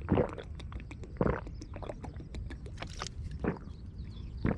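Handling noise from a plastic juice bottle, its cap and a plastic bag: a few short rustles and knocks about a second apart, with many small crinkly clicks, over a steady low rumble of wind on the microphone.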